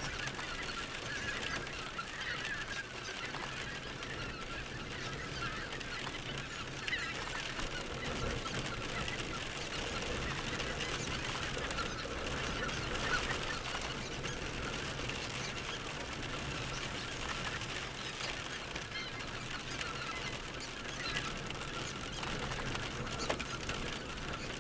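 A large mixed flock of red-breasted geese and greater white-fronted geese calling, many short calls overlapping into a steady, unbroken chorus.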